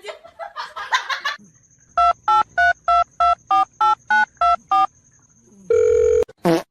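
Touch-tone phone keypad beeps: about ten digits dialed in quick, even succession, each a short two-pitch beep, then a steady tone for about half a second near the end.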